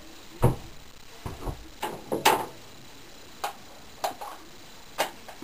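Scattered light clicks and knocks, about eight in five seconds, the loudest a little past two seconds in: handling sounds as a household clothes iron is switched on.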